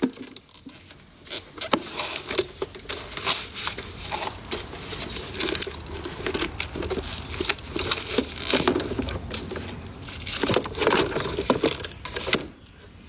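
Irregular tapping, clicking and scraping of small hard objects being handled, in uneven clusters with no steady rhythm.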